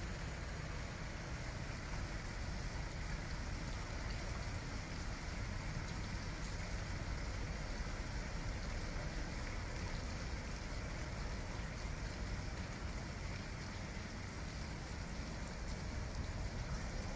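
Steady rushing of water churned up along the hull of an inland container ship as it moves slowly into a lock chamber, with a low rumble underneath.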